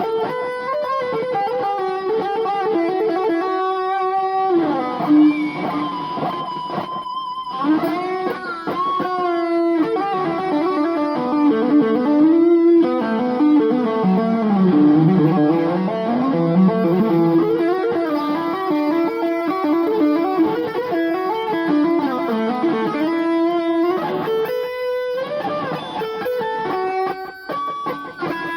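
Electric guitar playing a rock and roll lead solo: a single melodic line of notes with bends and slides, with brief pauses between phrases.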